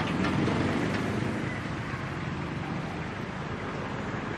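Steady street traffic noise with no distinct single event, easing slightly over the first second and a half.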